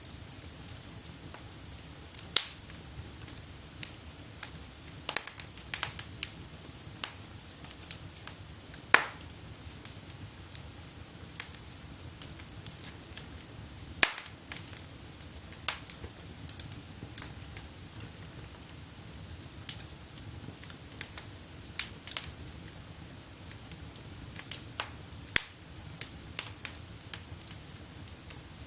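Wood fire burning in a fireplace, crackling with irregular sharp pops and snaps, a few of them much louder than the rest.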